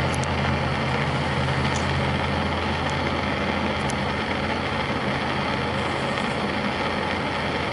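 Propane torch flame burning steadily into a small split ceramic fire-brick forge, bringing a steel rod up to forging heat: an even rushing with a steady low hum underneath.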